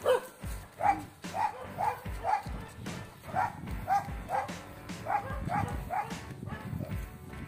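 A dog barking over and over in a quick run, about two barks a second, a dozen or so in all.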